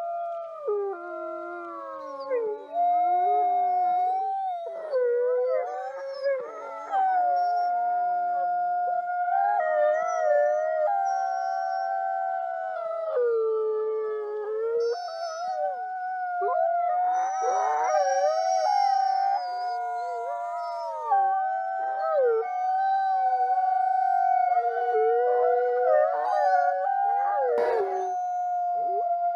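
A pack of wolves howling in chorus: several long, overlapping howls, one held on a steady pitch while others rise and fall around it. A short click sounds near the end.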